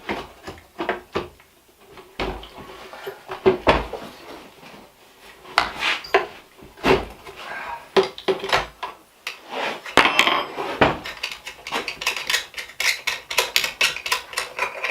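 Small metal parts and hand tools clinking and clattering as a part is unfastened and taken off a handheld leaf blower, with scattered knocks and a run of quick light clicks near the end.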